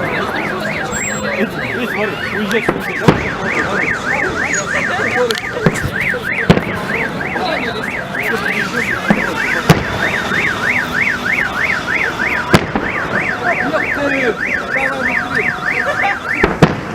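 A car alarm sounding a fast rising-and-falling electronic warble, about three sweeps a second, that cuts off near the end. Sharp firework bangs come every few seconds.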